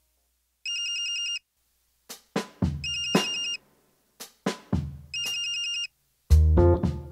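Smartphone ringing for an incoming call: a warbling electronic ringtone in three bursts of about a second each, with short gaps between. From about two seconds in, film-score music with sharp drum hits plays over it and turns heavier and louder near the end.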